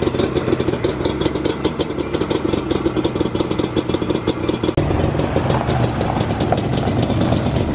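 Yamaha Banshee ATV's two-stroke twin engine idling with a rapid, even ticking beat. About two-thirds of the way through, the sound changes abruptly.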